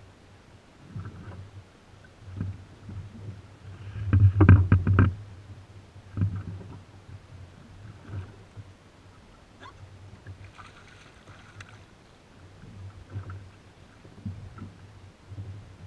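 Water slapping and lapping against the hull of a drifting jet ski in irregular surges, with a loud burst of knocks and slaps about four seconds in.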